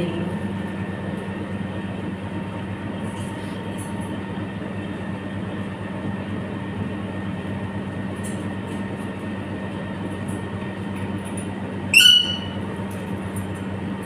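A steady mechanical hum runs under everything. About twelve seconds in, a parrot gives one short, shrill squawk, with a few faint high chirps before it.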